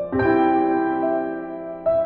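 Slow piano music: a chord struck just after the start, then new notes about a second in and near the end, each left to ring.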